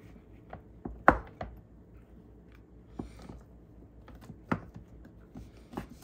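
Kitchen knife cutting cooked chicken breast on a wooden cutting board: irregular knocks of the blade against the board, the loudest about a second in.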